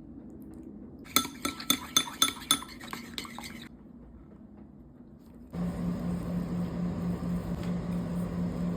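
A spoon clinks against a bowl in a quick run of strokes, as when stirring. Then, about halfway through, a steady low hum of an appliance starts.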